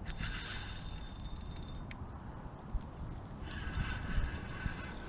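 A fast run of high clicking for the first couple of seconds, then geese honking from a little past the middle on.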